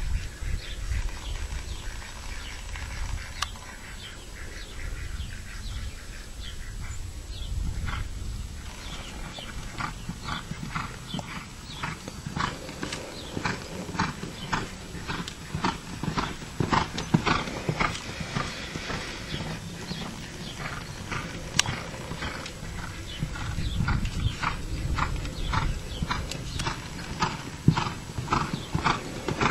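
Hoofbeats of a quarter horse being ridden on arena dirt: a steady run of dull thuds that grows regular about a third of the way in, over a low rumble.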